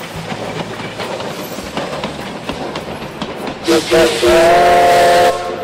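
Steam locomotive running with a steady clatter of scattered clicks. About four seconds in its steam whistle gives two short toots and then one loud blast of about a second, several tones sounding together.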